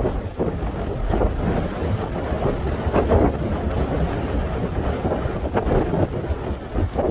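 Strong sea wind gusting and buffeting the microphone in uneven swells, with waves washing on the shore underneath.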